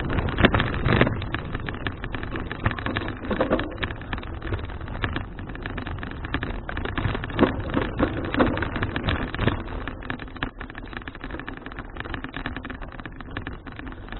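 Wind buffeting an action camera's microphone on a moving bicycle, with a steady low rumble and frequent small rattles and clicks from the bike and road.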